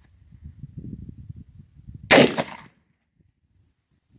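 A single shot from a Remington New Model Army revolver firing a .45 Long Colt cowboy action cartridge: one sharp report about two seconds in, trailing off briefly. A faint low rumble comes before it.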